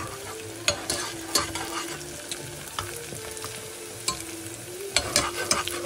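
Chopped red onion sizzling as it fries gently in a small nonstick saucepan, being stirred to brown it. A metal spatula scrapes and clicks against the pan a few times, most around five seconds in.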